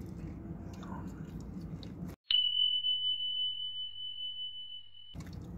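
A single steady high-pitched electronic beep, one pure tone held for about three seconds, cutting in about two seconds in after a brief moment of dead silence and stopping abruptly. Before it, only a faint low hum.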